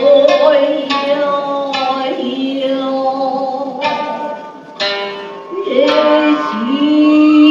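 Traditional Japanese dance music: sparse plucked shamisen notes that ring on, under a singer's long, slowly bending held notes.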